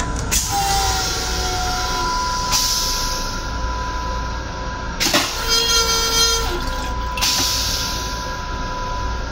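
Stainless-steel toilet in an M7 railcar restroom flushing after its button is pressed. A sudden start is followed by a falling tone and a rush of rinse water. About five seconds in comes a louder whoosh with a whistling gurgle, which cuts off sharply about two seconds later. Under it all is the steady hum of the railcar.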